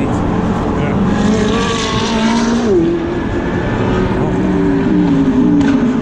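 GT race car engines running at racing speed, their notes climbing and falling with gear changes, with a sharp drop in pitch about three seconds in.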